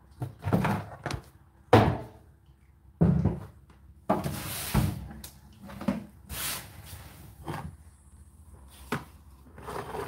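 Handling noise on a tumble dryer: a string of irregular knocks and bumps against its casing, with a longer rustle about four seconds in.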